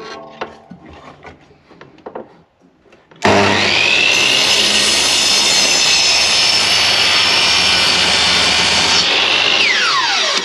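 Mitre saw starting about three seconds in with a rising whine and cutting through a block of timber in one steady, loud run. Near the end the cut stops and the motor winds down with a falling whine.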